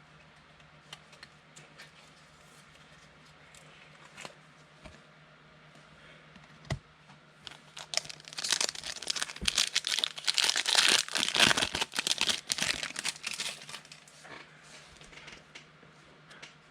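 A foil trading-card pack wrapper torn open and crinkled, with faint light handling noises first and then loud, dense crinkling for several seconds from about halfway in.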